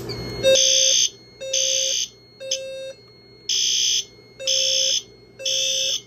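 Fire alarm system going into alarm as the pull station is activated. Horns sound in half-second blasts with half-second gaps, starting about half a second in, alongside the speaker strobes' 520 Hz tone. Both pulse in groups of three, the temporal-3 evacuation pattern.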